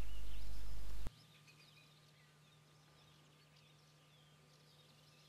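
A low hum that cuts off suddenly about a second in, leaving very faint distant chirps of small birds scattered over a quiet outdoor background.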